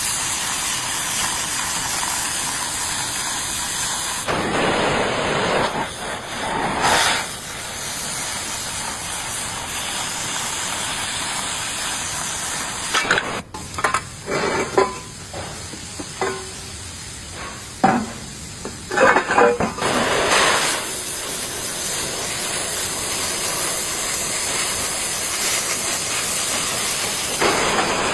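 Stick (shielded metal arc) welding arc crackling and sizzling steadily on steel. It breaks off for several seconds midway, with a few short sharp sounds in the gap, then starts again.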